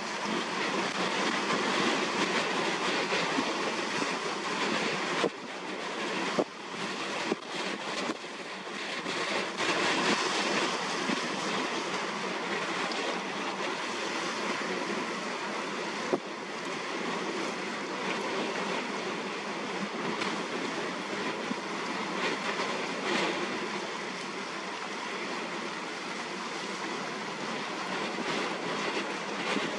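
Steady rushing of strong wind and choppy sea, with a few brief dips and sharp knocks about five to eight seconds in.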